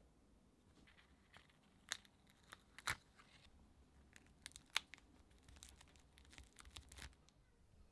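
A clear plastic butterfly sticker being pressed and rubbed down onto a painted paper journal page with a fingertip: scattered crackles and crinkles, with the sharpest ticks about two, three and five seconds in.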